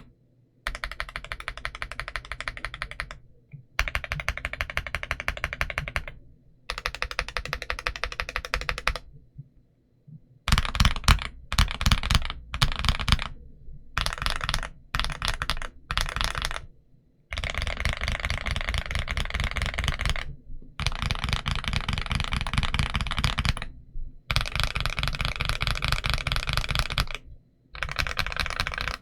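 Kzzi I75v2 White Rain low-profile mechanical keyboard being typed on: fast runs of keystrokes a few seconds long with short pauses between them. In the middle come shorter, louder bursts of keypresses.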